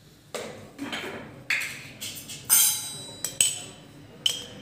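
Metal spoon clinking against stainless-steel kitchenware: about seven sharp, short clinks at irregular spacing, the loudest about two and a half seconds in.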